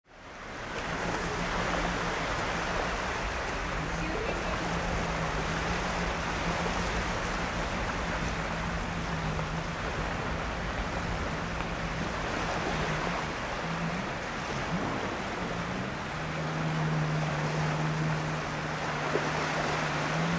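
Steady rushing roar of a distant Boeing 747-400 on final approach, mixed with wind noise on the microphone. A low hum underneath wavers in pitch and rises near the end.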